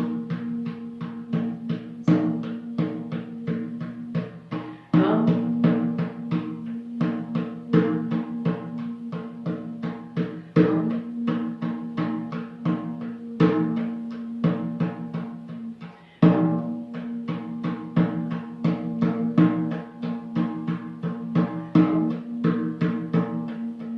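Music: rhythmic drumming, about three strokes a second, over a steady pitched drone.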